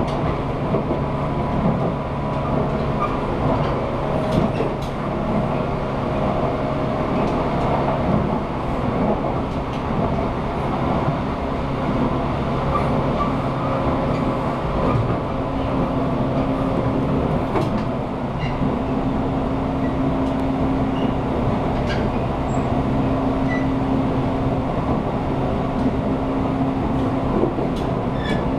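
JR 183/189 series electric multiple unit running at speed, heard from the vestibule: the traction motors whine steadily and high-pitched over the running noise, with occasional sharp clicks of the wheels over rail joints.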